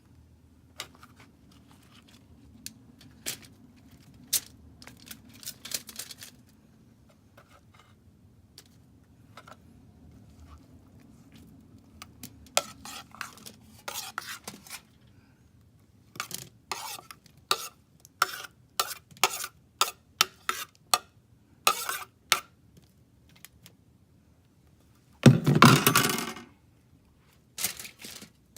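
Eating sounds: cutlery and dishes clinking with runs of short, sharp clicks, and one louder noisy burst lasting about a second near the end.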